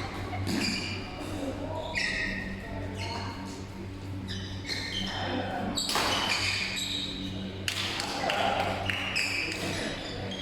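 Basketball game in an indoor gym: a ball bouncing on the court, short high squeaks and scattered knocks, and players' voices calling out, over a steady low hum.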